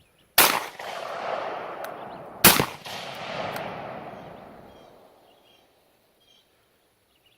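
Two rifle shots about two seconds apart, the second the louder. Each is followed by a long rolling echo that dies away over a few seconds.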